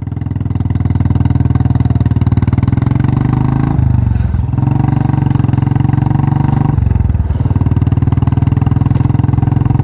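Single-cylinder Royal Enfield motorcycle engine running at steady cruising speed, heard loud from the rider's seat as a fast, even thump. The engine note dips briefly twice, about four and about seven seconds in.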